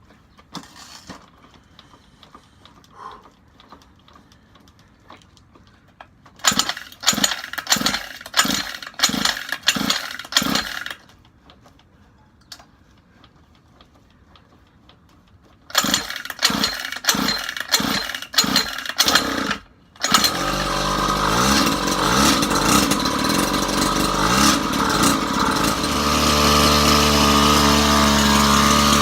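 A 49cc dirt bike engine being turned over in two quick bouts of repeated strokes without catching. It starts about 20 seconds in and runs, rising in pitch as it is revved, then holds a steady, higher speed.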